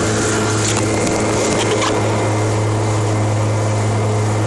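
Motorboat engine running at a steady pitch, a constant low hum with an even hiss over it.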